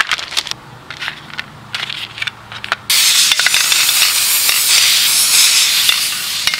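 Light clicks and rustling as small plastic toy spiders are tipped out onto cardboard. About three seconds in, an aerosol can of black spray paint starts spraying in a loud, steady hiss.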